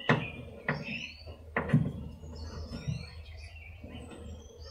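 Metal clicks and knocks of a hand tool tightening the starter cable connection in a car's engine bay, several separate strikes in the first three seconds.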